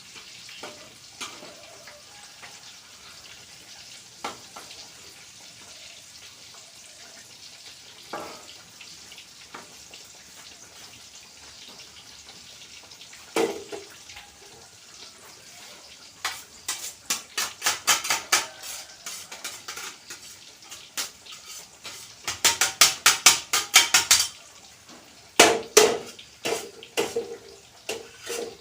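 Food frying in a pan with a faint sizzle and an occasional knock. From about halfway in, a metal spatula stirs and scrapes in the pan in quick runs of sharp strokes.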